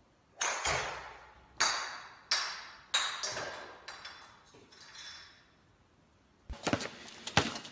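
A golf driver strikes a ball off a tee inside a garage, then a hard object ricochets around the enclosed space: about half a dozen sharp ringing pings that fade after each hit and grow fainter and further apart. After a short quiet spell, a quick cluster of light clicks and knocks comes near the end.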